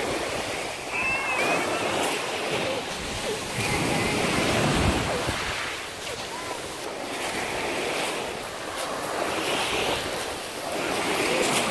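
Small sea waves washing onto a pebble shore: a steady hiss that swells and fades every few seconds, with faint distant voices.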